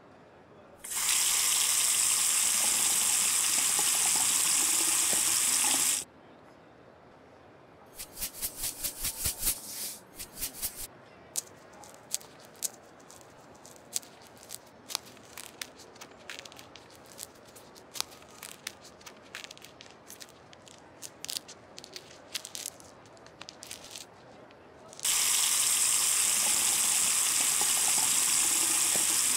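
A kitchen tap running steadily into a steel sink, stopping after about five seconds. Then a quick run of rattles and many scattered clicks as grapes are pulled off the bunch and dropped into a metal mesh colander. Near the end the tap runs again over the colander of green grapes.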